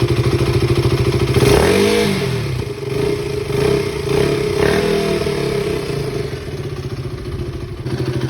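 KTM RC 200's single-cylinder engine, freshly rebuilt, idling steadily, with the throttle blipped twice so the revs rise and fall, about two seconds in and again near the middle.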